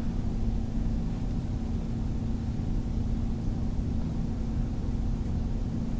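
Steady low background hum with one constant pitched tone over an even low rumble of room noise, unchanging throughout.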